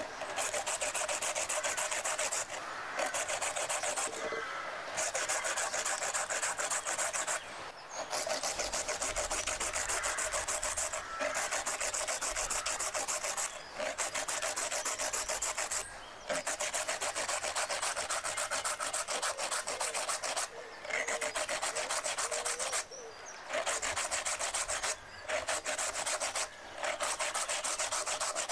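A carrot being grated by hand on a flat metal grater: quick, even rasping strokes, broken by short pauses every few seconds.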